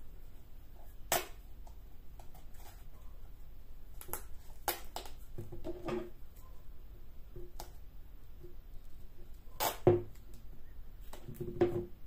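Handling noises while floral tape is wrapped around floral foam in a clear plastic container and scissors are picked up and put down: scattered clicks and light knocks, the loudest about two-thirds of the way through.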